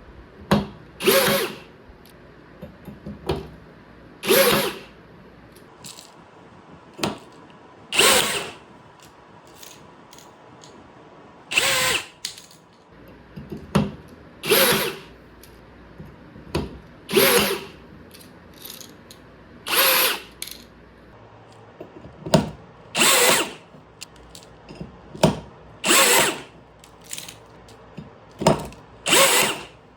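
Parkside 20 V cordless rivet gun's motor running in short bursts of about a second, roughly every two to three seconds, about ten times, with small clicks and knocks of handling between them.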